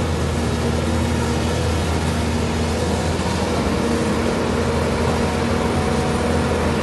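Heavy machinery engine running steadily at an even pitch, a low hum.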